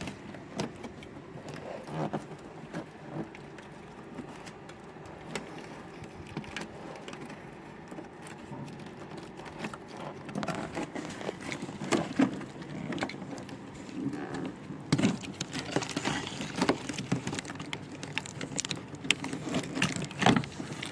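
Cardboard box and packing being handled while a keyboard is unboxed: scattered rustles, scrapes and short knocks, busier in the second half.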